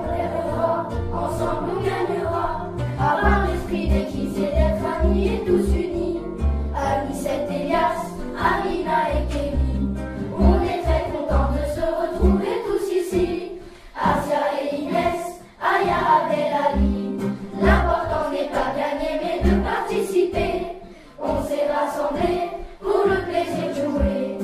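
Music: a group of voices singing a song together over a backing track with a pulsing bass line.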